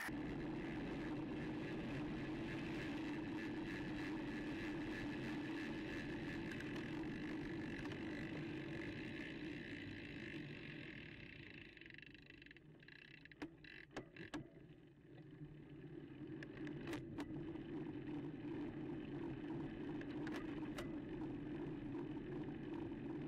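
Road bike riding a wet, narrow lane: steady wind and tyre noise, with wind on the microphone. The noise eases about halfway through as the bike slows onto a climb, with a few sharp clicks, before building again.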